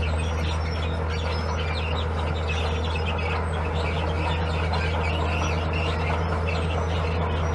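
Diesel engine of heavy earthmoving machinery running at a steady low drone, with birds chirping over it.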